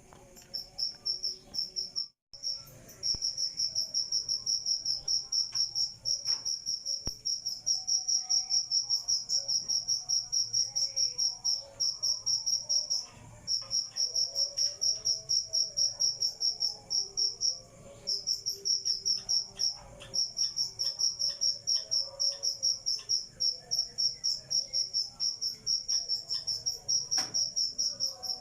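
Cricket chirping: a continuous high-pitched trill of rapid, even pulses, broken by a few short pauses. The sound drops out to silence briefly about two seconds in.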